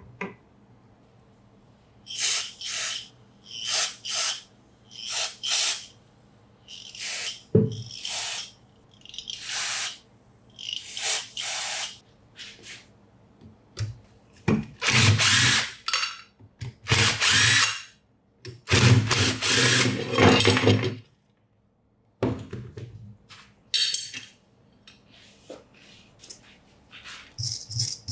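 A handheld power tool run in a string of short bursts, then in a few longer runs in which a low motor hum comes through.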